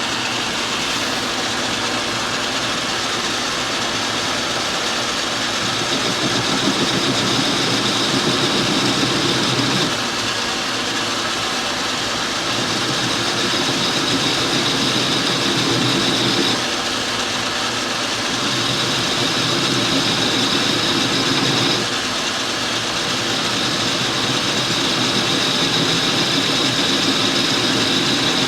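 Metal lathe running steadily, its motor and drive humming while a cutting bit turns the threads down on the end of a wheel stud. A higher whine swells and eases in several stretches of a few seconds each.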